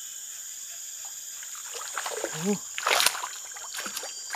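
A small snakehead (kocolan) splashing at the creek's surface as it hits the lure: one brief, sharp splash about three seconds in.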